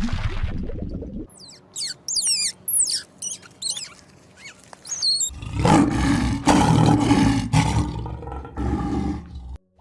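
A few quick high chirps falling in pitch, then a large animal's loud, deep call lasting about four seconds that cuts off suddenly.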